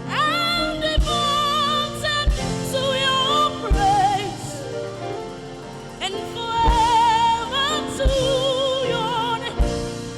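Live gospel worship music: a solo voice sings drawn-out, wavering lines with heavy vibrato over held keyboard chords, with a kick drum hitting every second or two.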